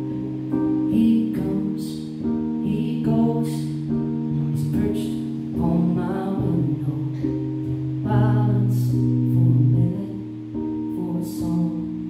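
Live music: an electric keyboard holding sustained chords that change every second or two, a plucked string instrument, and a voice singing over them.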